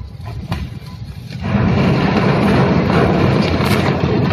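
A container ship's bow striking the concrete quay: about a second and a half in, a sudden loud, continuous crashing noise sets in and keeps going as the hull presses into the dock.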